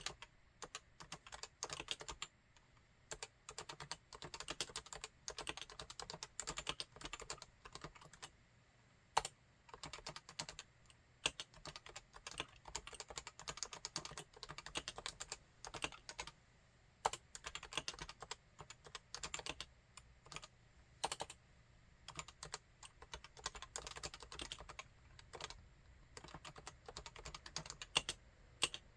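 Realforce 87UW tenkeyless keyboard with standard (non-silenced) Topre electrostatic capacitive switches being typed on: quick runs of keystrokes with short pauses between them and a few louder single strikes.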